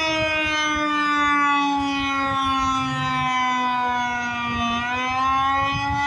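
Federal Signal Eclipse 8 outdoor warning siren sounding under test. Its tone slides slowly downward, then turns and starts rising again about five seconds in.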